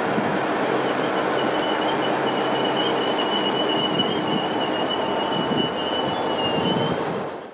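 LNER InterCity 225 coaches and driving van trailer rolling past close by, a steady rumble with a thin high wheel squeal from about a second in. The sound cuts off abruptly near the end.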